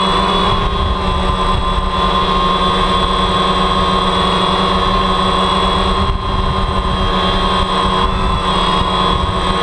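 DJI Phantom quadcopter's four electric motors and propellers buzzing steadily in flight, heard from the GoPro 3 mounted on the aircraft in its outer housing. The pitch stays nearly constant, with slight drifts as the motors adjust.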